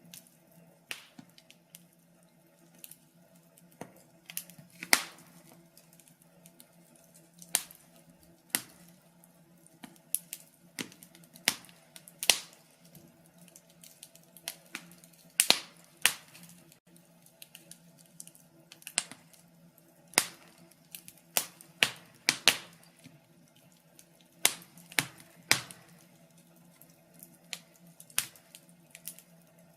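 Wood fire crackling in a fireplace: irregular sharp pops and snaps, one to several a second, some louder than others, over a faint low steady hum.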